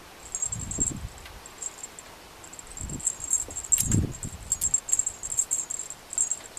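Cat toy on a string jingling in quick, irregular, high-pitched bursts as a kitten bats at it, busiest in the second half. Soft thumps of the kitten pouncing come three times, the loudest about four seconds in.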